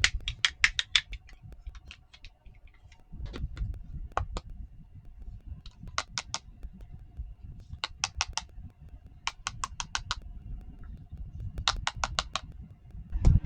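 Small plastic toy kitchen pieces being handled, clicking and tapping together in quick runs of several clicks, over a low handling rumble.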